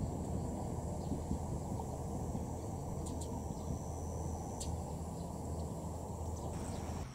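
Summer rice-field ambience: a steady low rumble with insects trilling at a high, steady pitch and a few faint clicks. The rumble drops off abruptly near the end.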